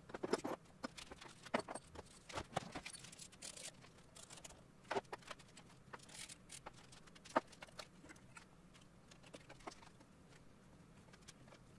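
Irregular light metallic clicks and clinks of hand tools and parts being worked on an engine's fuel distributor and intake fittings, a few taps a little louder than the rest.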